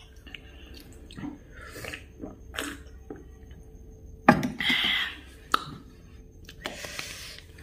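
Eating and drinking mouth sounds: chewing, and sips and swallows of a cold soft drink from a glass, with a louder sip about four seconds in.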